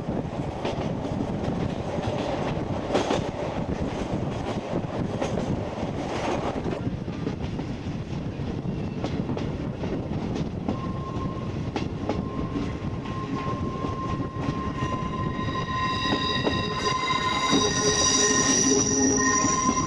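Steam-hauled passenger train running, its wheels rumbling on the rails as heard from aboard. About halfway a steady high squeal joins, and over the last few seconds it grows louder with several shrill tones at once: the wheel flanges squealing through a curve.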